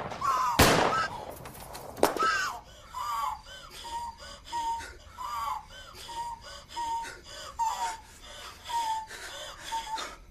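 A person sobbing in short, gasping, wavering cries about twice a second, after a brief loud outburst at the start and a sharp knock about two seconds in.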